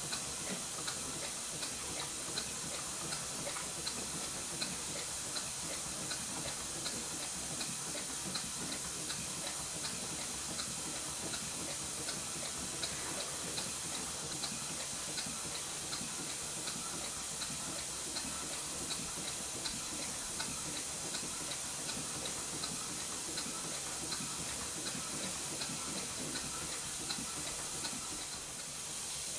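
Stuart Twin Victoria model twin-cylinder steam engine running steadily on compressed air: a constant hiss of exhausting air with an even, rapid ticking, about three ticks a second. It turns smoothly at this slow speed, though its valve timing is not yet quite right.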